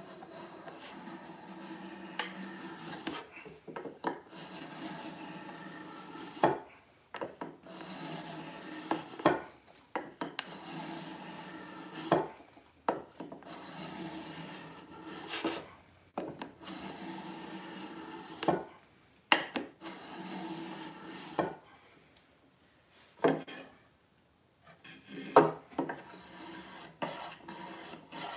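A small hand plane with a 60-degree bed cutting hard maple: about a dozen rasping strokes of a second or two each, with a sharp knock between strokes as the plane is lifted and set back down. The strokes stop for a couple of seconds about three-quarters of the way through, then start again.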